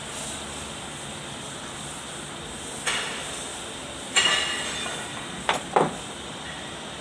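Metal clanks from tools and steel parts being handled during work on a rotovator: four sharp knocks, the second one loudest with a short metallic ring.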